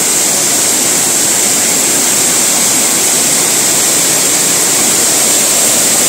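Waterfall pouring down a rock face: a steady, loud rush of falling water.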